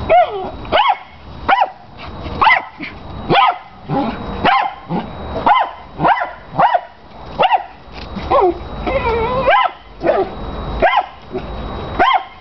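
Miniature Australian shepherd giving a run of high, piercing barks, roughly one a second, set off by playing with his big tennis ball. About three-quarters of the way through, one longer whining call rises and falls in pitch.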